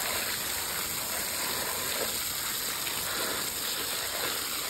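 A strong jet of water spraying onto freshly caught fish in a plastic basket while they are rinsed, a steady splashing hiss.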